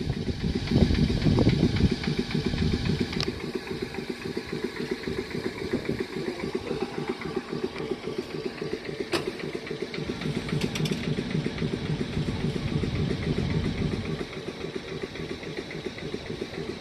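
A train's engine idling steadily with a fast, even pulse, a little louder in the first couple of seconds.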